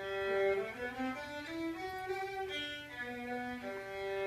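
Bowed string instruments playing a slow melody of held notes, led by a violin-like voice, starting abruptly.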